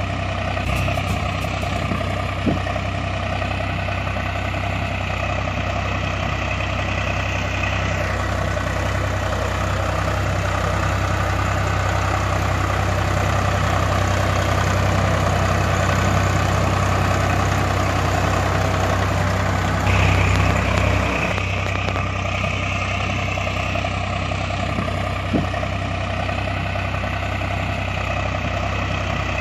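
Tractor engine idling steadily with a low, regular throb, a sound effect laid over the picture. The higher part of the sound cuts off abruptly about eight seconds in and comes back briefly about twenty seconds in.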